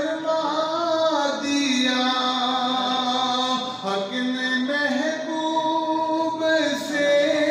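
A man's unaccompanied voice singing a naat (Urdu devotional poem), holding long ornamented notes that slide from one pitch to the next.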